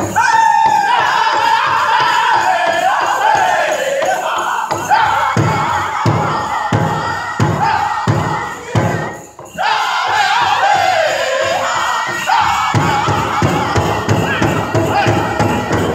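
Powwow drum group singing a chicken dance contest song: high voices singing falling phrases over steady strokes on the big drum. The sound drops out briefly just past nine seconds, then drum and singing come back, with the drumming denser in the last few seconds.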